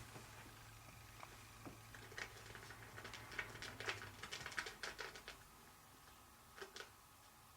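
Faint, irregular light clicks and taps of small objects being handled, thickest about three to five seconds in, with two more near the end. A faint low hum underneath stops about four seconds in.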